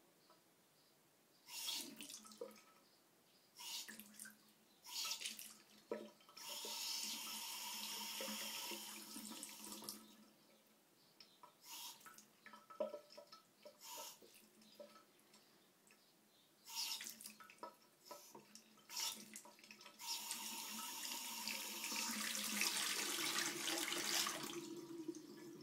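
Bathroom tap turned on and off in short spurts, water splashing into a ceramic washbasin, with two longer runs of about four seconds each, the second near the end.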